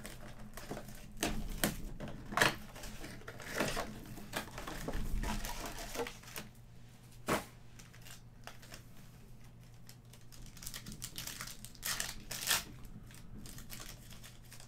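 A cardboard trading-card box being opened and its foil-wrapped card packs handled and torn: irregular crinkling, crackling and clicks, with a sharp snap about seven seconds in.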